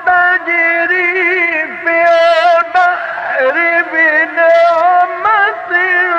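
Male Quran reciter's voice drawn out in a long, ornamented melodic run in the Egyptian tajweed style, the pitch turning and trembling without words, broken only by short breaths.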